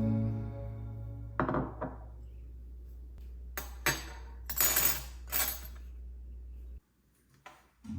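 A background song fading out, with its low drone cutting off near the end. Over it come a few sharp clinks and clatters of dishware being handled in a kitchen, one about a second and a half in and a cluster a couple of seconds later.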